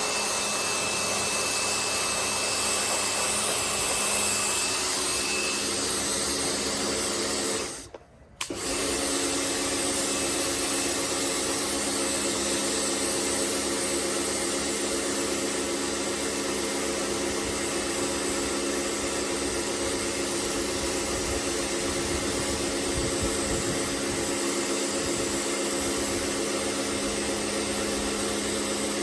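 Pressure washer running steadily, a motor or pump hum under a spraying hiss. It cuts out briefly about eight seconds in, then starts again.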